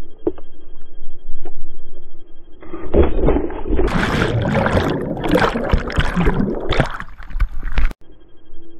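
Water bubbling and churning around an action camera submerged in a swimming pool, loud and dense from about three seconds in and cutting off abruptly about a second before the end.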